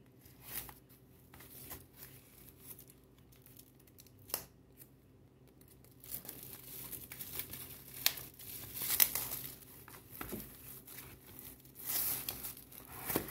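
Clear plastic shrink-wrap being torn off a cardboard box of baseball cards and crinkled by hand. For the first half there are only a few light handling taps; from about six seconds in comes steady crackling and tearing with several sharper rips.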